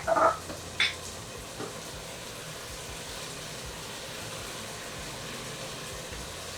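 Tomatoes and garlic sizzling steadily in a frying pan, with a few quick clinks of a utensil against the pan in the first second.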